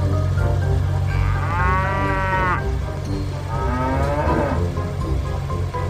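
A cow mooing twice, a longer moo and then a shorter one about a second later, over background music.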